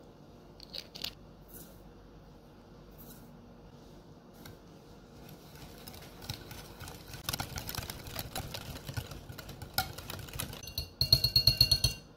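Wire whisk beating eggs, sugar and mashed banana in a glass bowl: the wires swish through the wet batter and clink against the glass, starting about five seconds in. Near the end comes about a second of fast, loud clinking of the whisk against the bowl.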